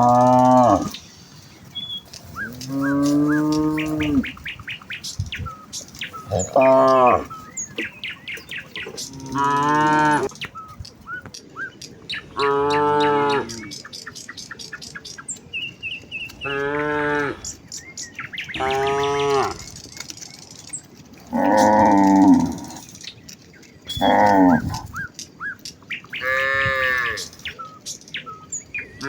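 Cows in a herd mooing again and again: about ten separate calls, each about a second long and a few seconds apart, some low and some noticeably higher-pitched as different cows call to each other.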